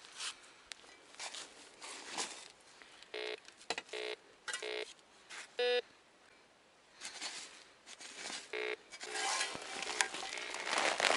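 Metal detector giving short, buzzy target beeps in several clusters as the coil passes over a buried metal target, between rustling and scraping in leaf litter and soil that grows louder near the end.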